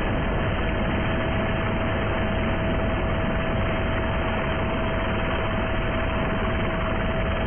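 Helicopter engine and rotor noise, steady and even, with a constant whine above it.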